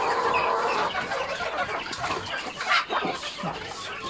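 Domestic chickens clucking, many overlapping calls at once, with one louder sharp sound about two-thirds of the way in.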